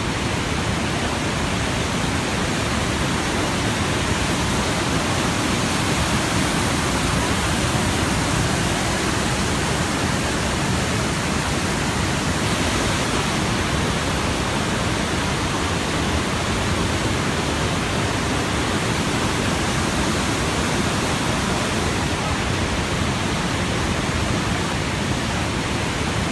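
Steady, even rushing noise that does not change at all, with no pitch and no separate events.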